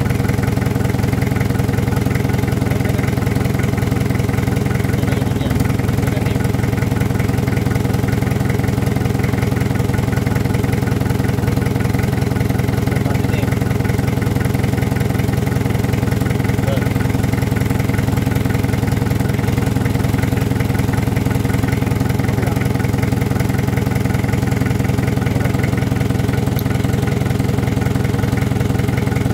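Isuzu C240 four-cylinder diesel engine running at a steady speed, with no change in pitch.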